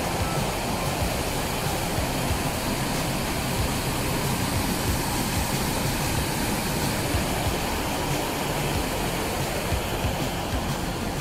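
Creek water rushing over shallow rapids, a steady even rush.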